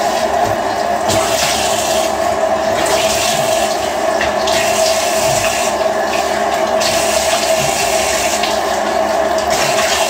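Tap water running steadily into a bathroom sink and splashing as a face is rinsed of foaming cleanser, the splashing hiss growing stronger and weaker every second or two.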